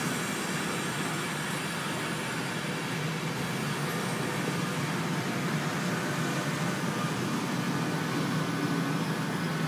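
Electric InterCity 225 train running past, its Mark 4 driving van trailer leading and Mark 4 coaches rolling by: a steady wheel-on-rail noise with a low hum.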